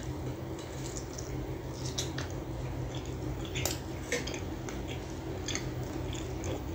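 Close-miked wet chewing of a full mouthful of butter naan and chicken, with scattered sharp smacking clicks over a steady low hum.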